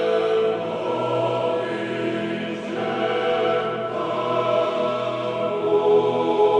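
Choir singing an Orthodox liturgical chant in slow, held chords that change every second or two.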